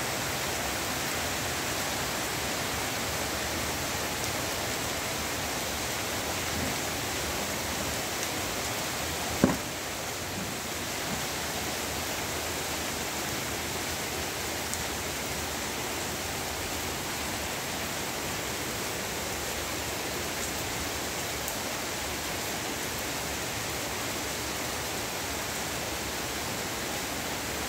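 Heavy rain pouring down steadily as an even hiss, with a single sharp knock about nine and a half seconds in.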